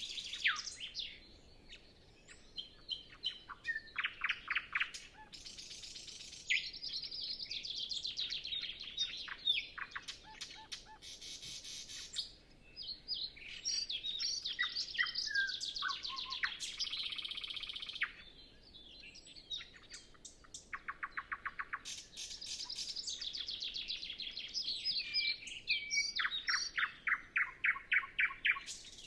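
Nightingale singing: a string of varied phrases, many made of fast runs of repeated notes, with short pauses between them.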